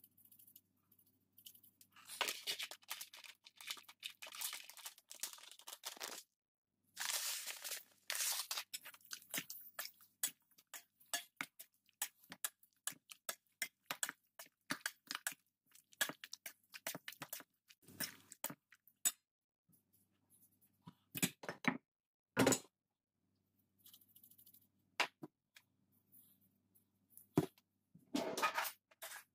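Raw fish fillets being mixed with seasoning in a bowl: wet crackling and squishing in two stretches, then scattered clicks and a few sharp knocks.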